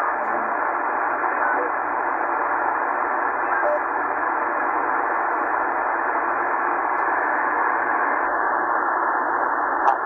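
Hiss and static from a Tecsun PL-990x portable shortwave receiver in lower-sideband mode as it is tuned down through the 80-metre amateur band with no station clearly held. The hiss turns slightly duller about eight seconds in, and a short click sounds just before the end.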